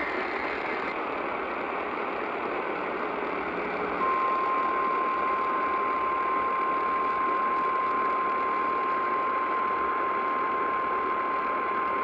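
Weather radio receiver hissing with static; about four seconds in, the steady single-pitch 1050 Hz NOAA Weather Radio warning alarm tone starts and holds, the signal that a warning broadcast is about to follow.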